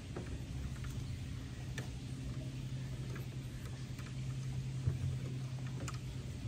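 Scattered light clicks and ticks of hands fitting the timing belt and small parts onto the aluminium frame of a laser engraver, with a sharper knock just before the five-second mark. A steady low hum runs underneath.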